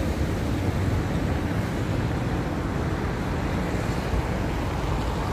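Steady road traffic noise from cars running along a busy multi-lane city street, a dense low rumble with no distinct events.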